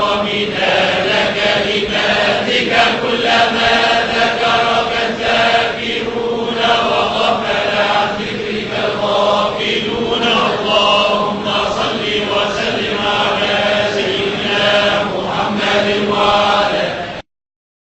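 A group of voices chanting together in unison, a collective invocation of blessings on the Prophet (salawat). The chant cuts off abruptly near the end.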